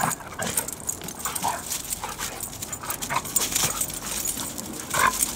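Two large dogs, a Siberian husky/German shepherd mix and a shar-pei/chow/saluki mix, play-fighting. Brief whining yips sound every second or two over scuffling in dry leaves.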